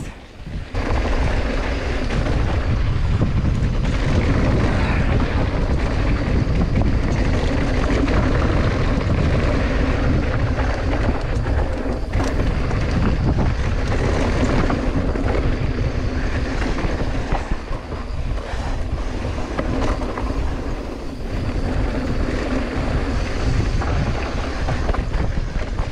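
Mountain bike descending a dry, rough dirt trail at speed: a steady rush of wind over the microphone, with the tyres rolling on loose dirt and the bike rattling over bumps.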